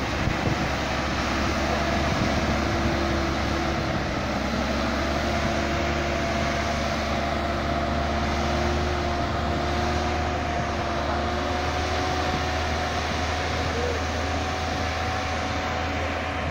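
Loaded Mack dump truck's diesel engine running as it drives over a dirt road, steady throughout, with a thin whine that slowly rises in pitch.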